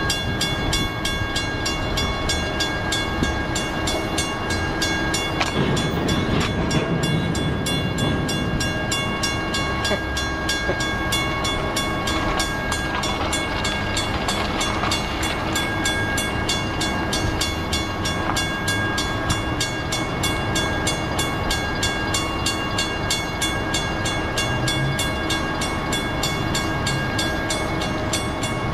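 Railroad grade-crossing bell ringing steadily over the low rumble and clanks of a BNSF intermodal train's well cars rolling slowly past and coming to a stop.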